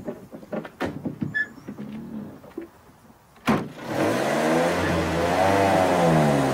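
A few scattered knocks and clicks, then a sharp car-door slam about three and a half seconds in. A vintage Citroën Traction Avant's engine then starts and runs, its pitch rising and falling as it revs to pull away.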